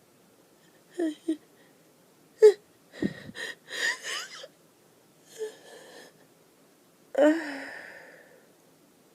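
An allergic sneezing fit: gasping, wheezy catches of breath and several sharp, breathy sneezes. The last, about seven seconds in, starts abruptly and trails off slowly.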